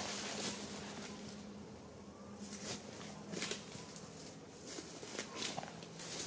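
Footsteps crunching and crackling through dry fallen leaves and brush. They fade to their quietest about two seconds in, then grow louder and closer again toward the end.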